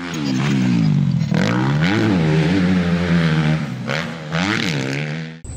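Dirt bike engine revving, its pitch climbing and dropping with a few throttle blips, then cutting off suddenly near the end.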